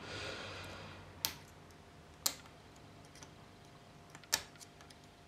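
Small sharp metallic clicks, three clear ones with fainter ticks between, from a screwdriver tip and a steel circlip being pushed into the bore of a Triumph T140 front brake master cylinder.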